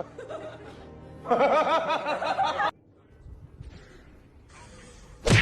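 A burst of high-pitched laughter for about a second and a half, beginning about a second in, over background music, with a single sharp thump near the end.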